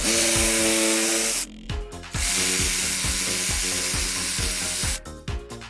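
Jigsaw cutting through skirting board to clear out the waste behind a scribed cut, in two runs with a short break about a second and a half in, stopping suddenly near the end. Background music with a steady beat plays underneath.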